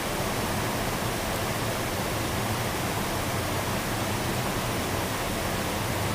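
Steady, even rushing noise with no distinct events or tones.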